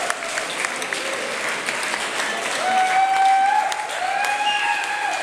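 Dancers applauding, a dense patter of hand claps, with two long held whoops of voices over it in the second half.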